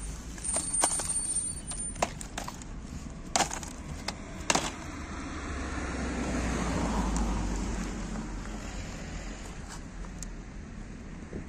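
Hard plastic DVD cases clacking as they are handled, a few sharp knocks in the first four or five seconds, then a car passing, its noise swelling to a peak and fading over about four seconds.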